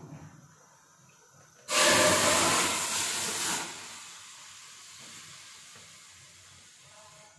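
Yogurt-marinated chicken poured into a hot karahi: a sudden loud sizzle about two seconds in as the wet marinade hits the hot metal, dying down over the next few seconds to a faint sizzle.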